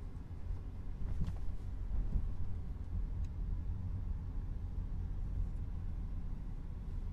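Car driving, heard from inside the cabin: a steady low rumble of engine and road noise, with a faint click about three seconds in.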